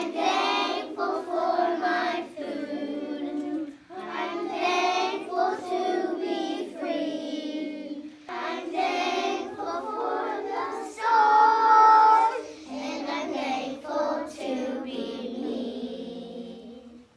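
A group of young children singing a song together in unison, in phrases with short breaks for breath about four and eight seconds in.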